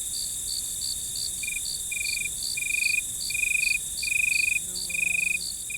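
Crickets chirping: quick short chirps about three a second over a steady high hiss, joined about a second and a half in by a lower, longer trill repeating every half second or so.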